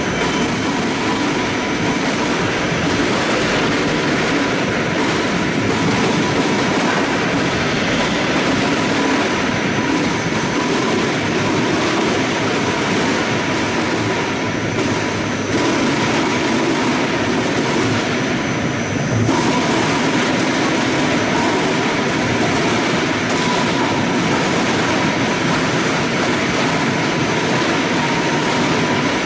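Apple-juice processing machinery running: a continuous, even machine noise with a faint steady whine, unchanged in loudness throughout.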